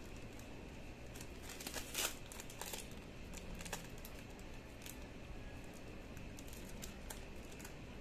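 Thin plastic bags crinkling and rustling in quick, irregular handling noises as the little bags are picked up and sorted, the loudest rustle about two seconds in.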